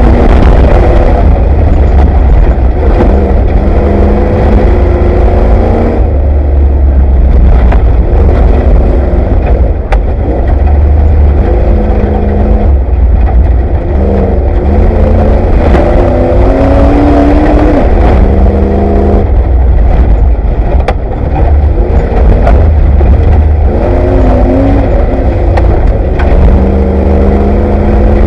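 Off-road race vehicle's engine running hard, its pitch rising repeatedly and dropping back, over a heavy low rumble with frequent sharp knocks and clatter, heard from inside the vehicle.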